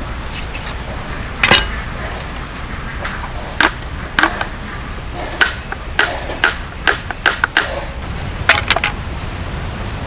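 A dozen or more sharp hand-tool strikes and taps at an uneven pace: one loud knock about one and a half seconds in, then a closer run of strikes through the middle, some with a short ring.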